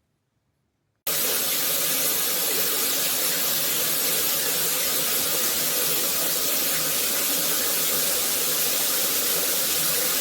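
Water spraying steadily from a shower head, a loud even hiss that starts suddenly about a second in and cuts off abruptly.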